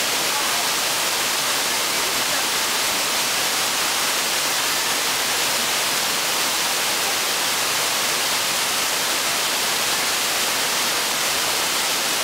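Waterfall pouring onto rock: a loud, steady rush of falling water that does not change, brightest in the hiss range.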